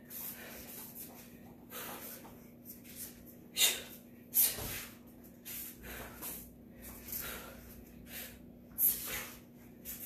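A woman's sharp exhalations, breathed out with each punch and kick as she shadowboxes: several short bursts of breath at uneven intervals, the strongest about three and a half, four and a half and nine seconds in.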